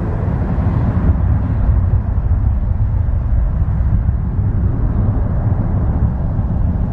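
Jet airliner's engines, a loud steady low rumble that cuts off abruptly near the end.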